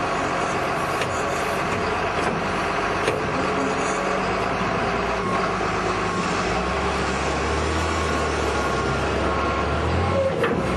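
Engine of a heavy earthmoving machine running steadily while its bucket tips sand into wire-mesh baskets, with a deeper low rumble joining a little past halfway as the engine works harder.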